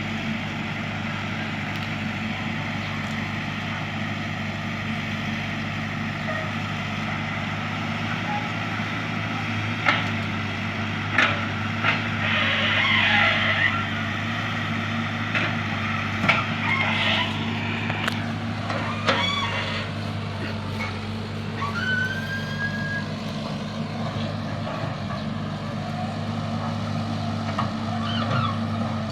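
Heavy diesel engine of an excavator running steadily, with a few sharp metal clanks and knocks in the middle and a brief squeal a little after them.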